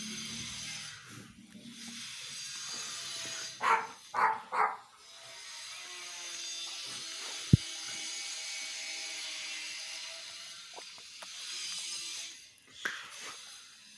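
A dog barking three times in quick succession, then a single sharp knock a few seconds later, over a steady background hiss.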